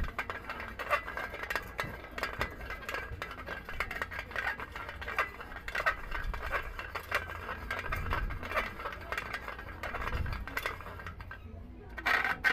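Tin-can reel and metal parts of a homemade fishing rod being handled: irregular light metallic clicks, clinks and knocks, with a louder cluster of knocks near the end.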